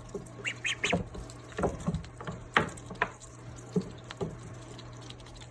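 Young Pekin ducklings pecking and dabbling: scattered clicks and soft taps, with a few short high peeps about half a second in.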